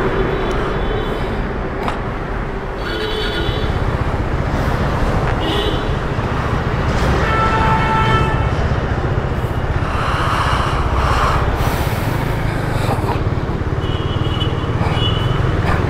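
KTM motorcycle running on the move, its engine rumble under steady road and wind noise. A few brief high-pitched tones sound over it now and then.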